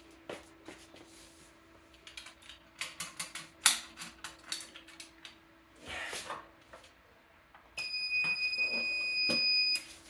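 Clicks and rattles of a Resideo fire alarm pull station being reset, its key turned and its handle pushed back into place. Near the end the alarm system gives a steady high electronic tone for about two seconds.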